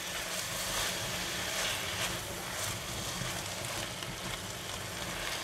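Seasoned vegetables sizzling in a stainless steel wok as they are stir-fried, with a spatula stirring and scraping against the pan; a steady hiss with light scrapes.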